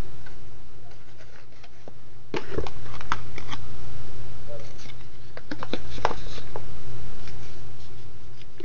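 Paper and cardboard packaging being handled: scattered rustles, taps and clicks, with a few louder clicks about two and a half to three seconds in and again about six seconds in, over a steady low hum.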